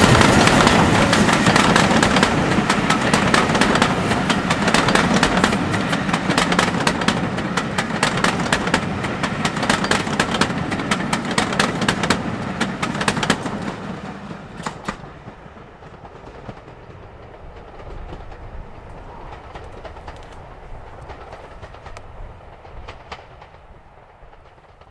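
Steam-hauled passenger train passing at speed, its coaches' wheels clicking rapidly over the rail joints. About 14 seconds in, the clicking stops and the sound falls to a low rumble that fades away as the train draws off.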